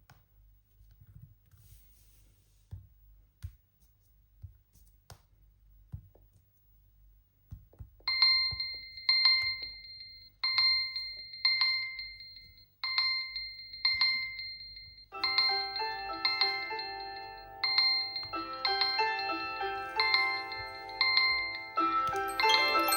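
Smartphone alarm/timer tones. After a few seconds of faint taps, a bright chime-like tone sounds in pairs, each about a second apart. About fifteen seconds in, a melodic mallet-like alarm tune of many notes takes over.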